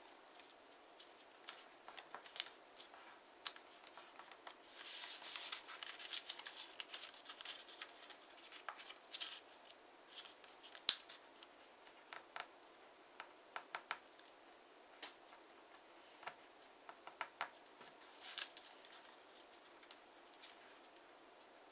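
Sheet of origami paper being folded by hand: soft rustling and scattered crisp ticks as fingers crease the folds. There is a longer rustle about five seconds in, one sharper snap about halfway through, and another rustle near the end.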